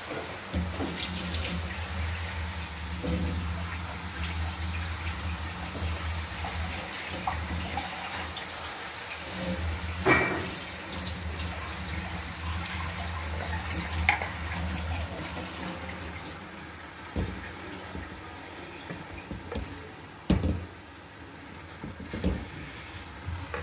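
Water poured into a pan of cooking fenugreek leaves and potatoes, a steady water sound lasting about the first fifteen seconds. A wooden spatula stirs the greens and knocks against the metal pan several times, mostly in the second half.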